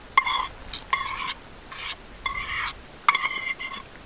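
Spoon scraping and stirring food in a container, in about six short strokes with brief pauses between them.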